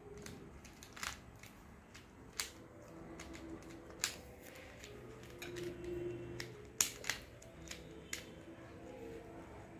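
A 3x3 mirror puzzle cube being twisted by hand: irregular sharp plastic clicks and clacks as its layers are turned, a few seconds apart, with two close together a little before the end.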